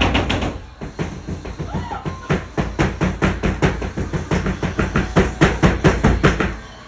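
A rapid run of loud thumps or drum-like hits, about three to four a second, growing stronger toward the end and cutting off suddenly.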